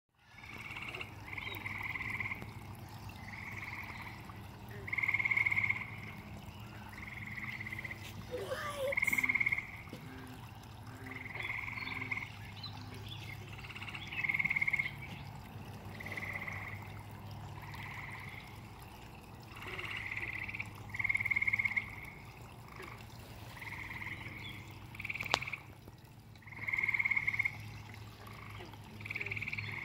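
Frogs calling from a pond: a chorus of short, high trills about a second long, one after another every second or two.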